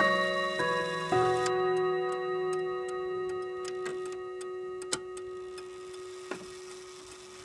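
Grandfather clock chiming on its chime rods: three more hammer strikes in the first second or so, then the notes ring on together and slowly fade while the movement ticks steadily.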